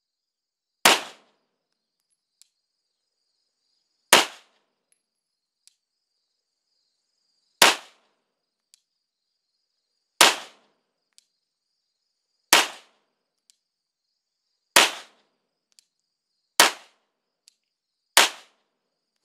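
Glock 19 9mm pistol fired eight times in slow aimed fire, three to four seconds apart at first and closing to under two seconds by the end, with a faint tick between shots. The pistol is being function-tested after a striker spring replacement.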